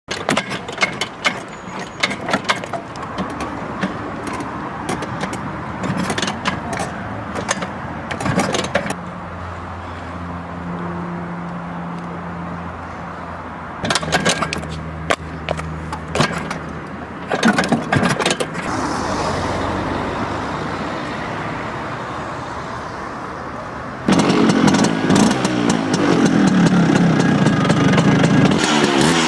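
Vespa scooter engine being kick-started: a series of clattering kicks, then the engine catches and runs steadily for several seconds, then more kicks. About three-quarters of the way through it runs loud, the revs rising and falling as it is revved hard.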